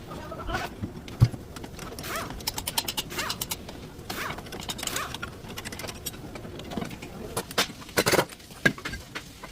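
Irregular clicks and clatter of metal hand tools and brake parts being handled, with bird calls in the background.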